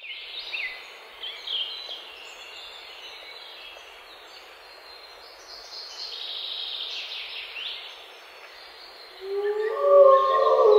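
Birds chirping and calling over a steady rushing background of outdoor ambience. About nine seconds in, several sustained bell-like ringing tones swell in and grow loud.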